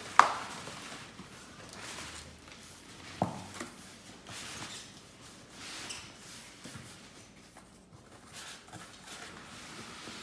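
A large cardboard carton being handled: a sharp knock just after the start and a smaller one about three seconds in, then light scuffing and rustling of the box.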